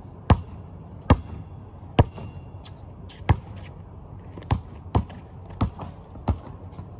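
A basketball bouncing on a concrete driveway: about eight sharp bounces, slow and uneven at first, then coming quicker in the second half.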